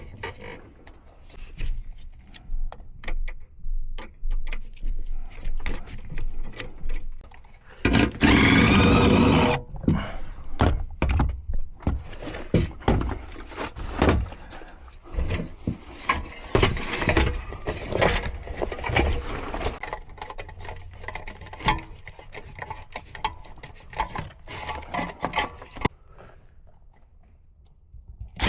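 Clicks, knocks and metal rattles from tools and parts being handled while an electrical disconnect box is taken out. About eight seconds in, a power tool runs briefly.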